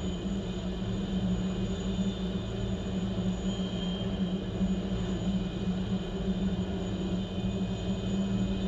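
Rescue helicopter running on the ground at idle with its rotors turning: a steady low drone and rotor beat with a thin, high turbine whine above it.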